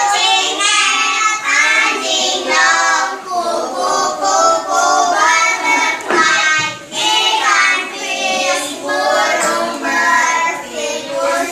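A group of young children singing together in a classroom.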